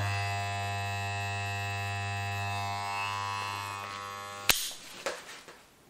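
Electric hair clippers running with a steady hum, then stopping with a sharp click about four and a half seconds in.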